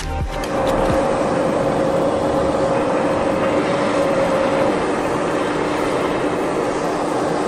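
A gas blowtorch hissing steadily, starting about a second in, over a wood lathe running with a steady hum.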